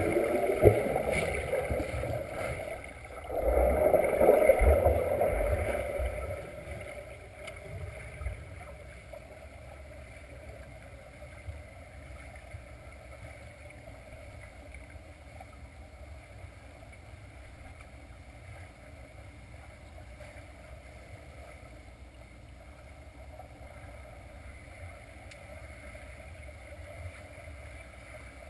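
Swimmers' arm strokes and kicks churning the water, heard underwater from the pool bottom: loud in two surges over the first six seconds as swimmers pass overhead, with a short dip about three seconds in. After that only a steady faint underwater hum remains.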